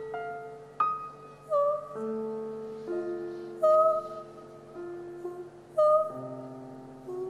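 Live jazz band music: a slow melody of single struck notes, each ringing on and fading, over sustained lower chords.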